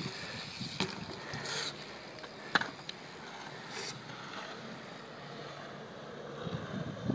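Skatepark background: a few sharp knocks and clatters, the loudest about two and a half seconds in, over a steady outdoor hiss with low wind thumps on the microphone near the end.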